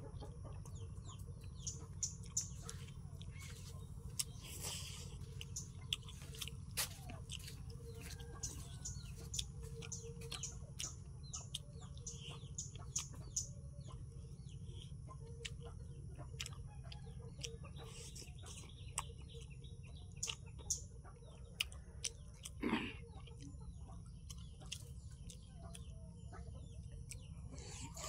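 Eating by hand: chewing and lip smacks, with wet rice and chicken curry squished between the fingers, in many short soft smacks and clicks. Birds chirp in the background and a chicken clucks, one louder call about 23 seconds in.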